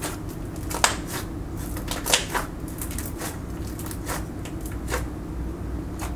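Slime being handled, giving irregular sticky clicks and pops.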